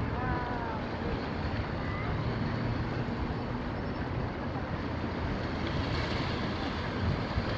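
Steady outdoor background rush and low rumble, like wind and distant traffic or surf, with a few faint voices briefly near the start.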